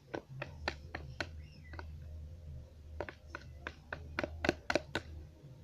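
Slime mixture of clear glue and liquid soap being stirred in a container: irregular clicks and taps of the stirring utensil against the container. A low steady hum starts about half a second in.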